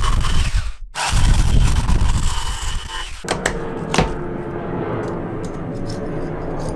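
Jigsaw cutting a groove in a quarter-inch poplar board. The cutting stops for a moment just under a second in and stops for good after about three seconds, leaving quieter handling noise with a couple of sharp knocks.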